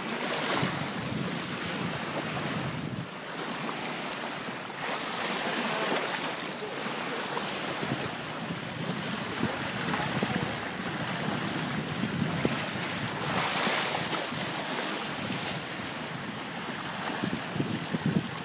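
Bow wave rushing and hissing along the hull of an X-41 sailing yacht moving through the sea, with wind buffeting the microphone. The level swells and eases, and sharper splashes come near the end.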